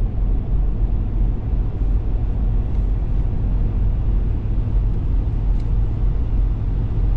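Steady low rumble of engine and road noise inside the cab of a 2024 Ford F350 Super Duty with the 7.3-litre gas V8, cruising at highway speed.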